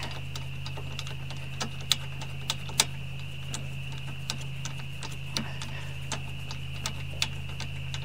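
A metal spark plug socket turned by hand, threading a new spark plug into the aluminium cylinder head of a two-cylinder Briggs & Stratton engine: light irregular clicks, about one a second, over a steady low hum.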